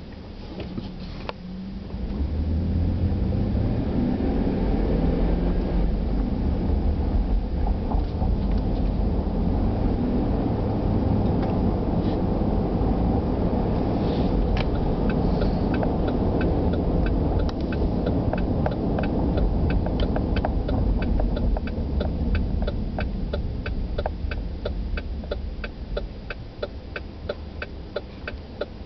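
Car driving, heard from inside the cabin: engine and road noise rise to a loud low rumble about two seconds in and hold steady, easing off near the end. From about halfway through, the turn-signal indicator ticks evenly, about two ticks a second.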